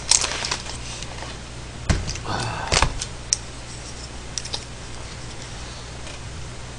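Plastic takeout containers clattering and knocking on a tabletop as they are moved and their lids taken off: sharp clicks and rustling at first, two louder knocks about two and three seconds in, then a few light clicks.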